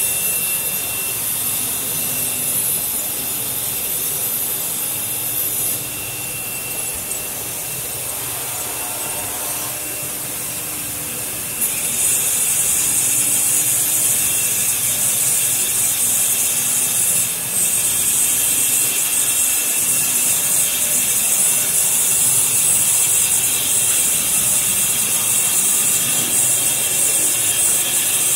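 CNC router's spindle-mounted saw blade cutting grooves in an aluminium sheet: a continuous high-pitched hiss and whine of the blade in the metal. It drops somewhat about six seconds in and comes back louder and shriller from about twelve seconds in.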